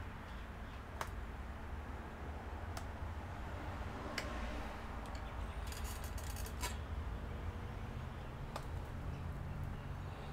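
Scattered small clicks and taps from handling parts inside an iMac during a power supply replacement, with a short run of rapid ticking just past the middle, over a steady low hum.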